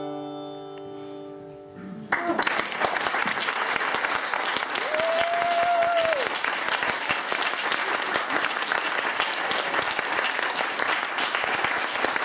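The final held chord of the song, harmonica over acoustic guitar, fading out, then the audience bursts into applause about two seconds in and keeps clapping, with one long whoop from the crowd partway through.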